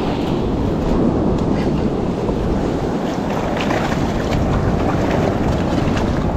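Steady surf breaking on the beach with wind buffeting the microphone, a constant heavy rush with no let-up.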